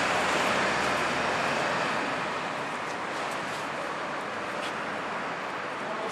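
Road traffic passing on a city street: a steady wash of traffic noise that is louder for the first couple of seconds, then dies down to an even level.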